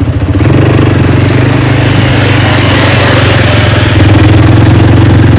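Quad bike (ATV) engine running steadily while riding, loud and close, with road noise under it.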